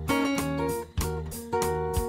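Background music of strummed guitar chords with a steady rhythm, a new strum about every half second.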